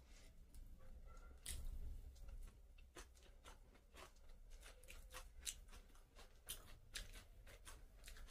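Close-miked eating sounds: faint, irregular wet clicks and smacks of chewing, and of fingers mixing rice and chicken on a plate.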